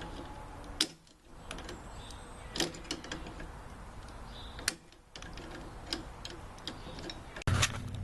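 Irregular metallic clicks and ticks of a tool working the belt-tension adjustment on a Chamberlain garage door opener's trolley, tightening the drive belt, with a few louder clicks and a sudden louder clatter near the end.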